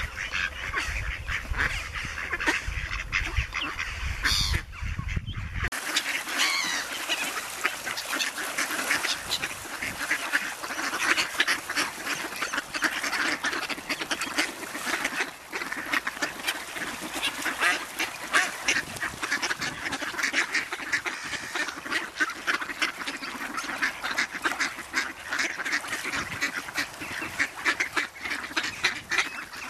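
Mallard ducks and their ducklings calling: a dense, continuous chatter of quacks and short calls.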